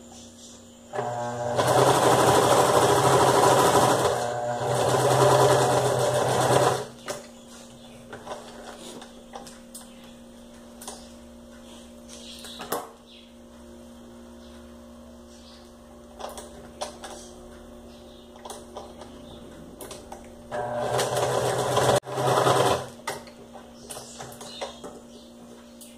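Electric home sewing machine stitching felt in two runs, the first from about a second in to about 7 s with a brief slowdown near 4 s, the second for about two seconds around 21 s; quiet handling and small clicks in between.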